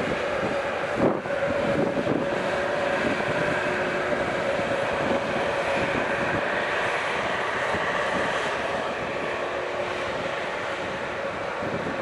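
Airplane engines running: a steady drone with a couple of held tones over a rushing noise, and a higher whine that swells a little partway through and then eases.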